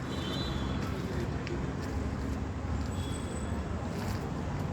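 Steady outdoor background rumble, low and even, with a few faint short high tones over it.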